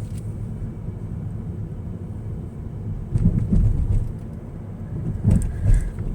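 Car driving slowly, heard from inside the cabin: a steady low rumble of engine and tyres, with two louder low rumbling bumps, about three seconds in and again near the end.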